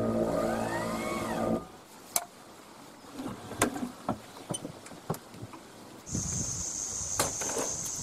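Electric caravan mover motor whirring with a steady gear whine that rises and falls, then stopping about a second and a half in. Scattered clicks and knocks follow, then a steady high hiss from about six seconds in.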